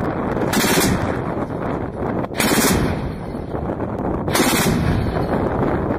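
ZU-23-2 twin 23 mm anti-aircraft autocannon firing in rapid bursts. The three loudest bursts come about two seconds apart, with the reports running on between them.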